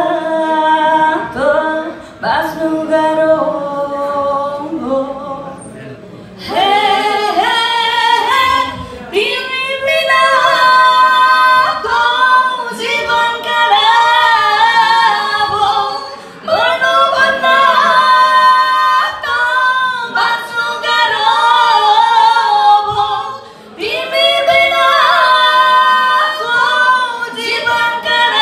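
Two women singing a Nepali song live into microphones with no backing track or instruments. The singing is softer for the first few seconds and becomes fuller and louder from about six seconds in, in long phrases with short breaths between them.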